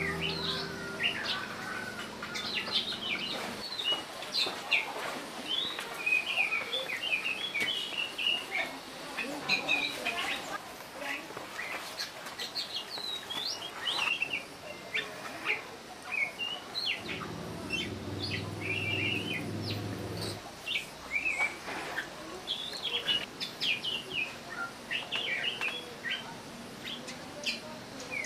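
Small birds chirping: many short, high chirps scattered throughout. A low hum is heard for a few seconds past the middle.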